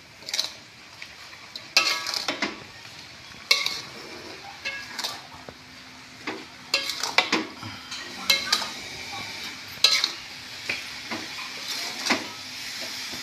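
Metal spatula scraping and clanking irregularly against an aluminium wok while stirring beef srondeng (toasted grated coconut with spiced beef), with a light sizzle of the mixture frying over the gas flame.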